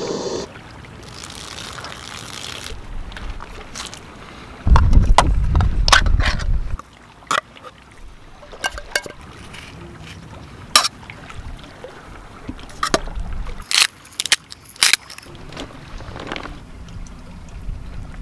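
Hands and utensils at a metal camping pot: a scatter of sharp clicks and knocks. A loud low rumble lasts about two seconds, a few seconds in.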